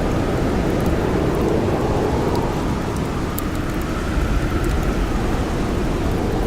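Blizzard wind blowing steadily with a deep rumble and a faint howl, with sparse small pops of a crackling campfire.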